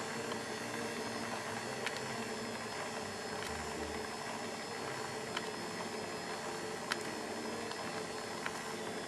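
Kenwood stand mixer's motor running steadily as it beats eggs and cake mix, with a few light ticks.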